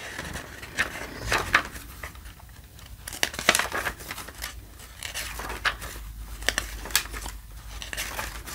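Pages of a small glossy booklet of magazine-thickness paper being turned by hand: a series of short, irregular paper rustles and flicks.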